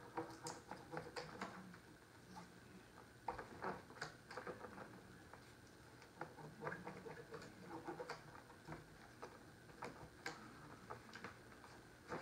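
Faint, irregular ticks and crackles of vinyl wrap film being pressed and folded by hand around the edge of a wooden board.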